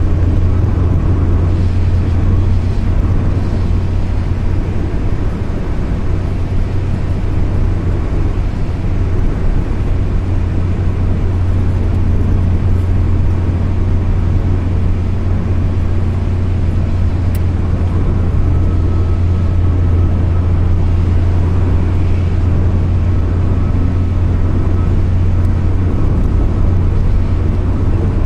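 Steady in-cabin driving noise of a car cruising at highway speed: a constant low drone from the engine and the tyres on the road.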